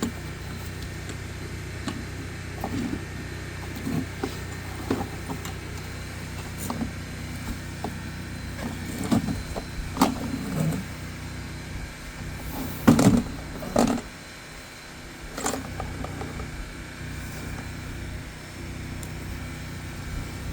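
An engine running steadily with scattered knocks and clanks, the loudest two about 13 and 14 seconds in. Right after them the engine's low hum drops away.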